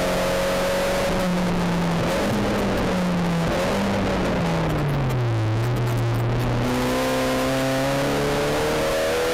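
SEAT Leon Supercopa's turbocharged four-cylinder race engine heard from inside the cockpit. Its note falls in steps through the first half, as the car brakes and shifts down for a corner. From about two-thirds of the way in, it climbs steadily as the car accelerates out.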